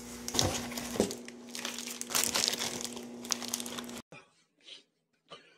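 Packaging of a boxed Easter bun being handled, crinkling and rustling with many small crackles over a steady low hum. It cuts off abruptly about four seconds in, followed by a few short, separate sounds.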